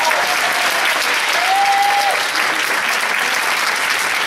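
Concert audience applauding steadily at the end of a piece, with a few brief calls from the crowd above the clapping, one held for about half a second near the middle.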